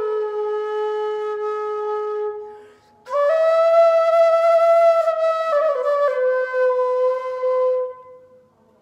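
Bamboo bansuri flute playing a slow melody solo. A long held note fades out about two and a half seconds in; after a short breath a new phrase starts on a higher note, steps down, and settles on a long held lower note that ends shortly before the end.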